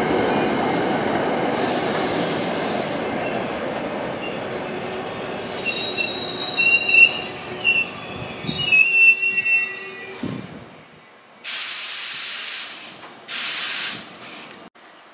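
NJ Transit electric push-pull passenger train rolling past and fading away, its wheels squealing in thin high tones on the rails partway through. Near the end come two sudden, loud bursts of hiss.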